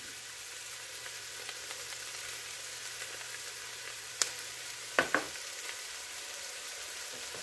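Chopped onion, celery and carrot sizzling gently in melted butter in an enameled cast-iron Dutch oven as they start to sweat. A couple of sharp clicks come about four and five seconds in.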